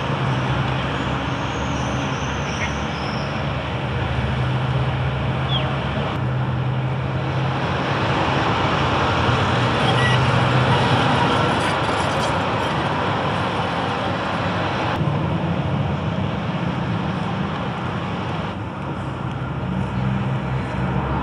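Street traffic noise: a steady hum of passing vehicles, whose character shifts abruptly a few times.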